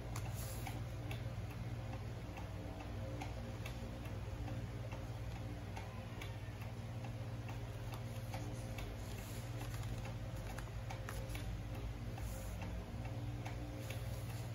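Light ticks repeating about twice a second over a steady low hum.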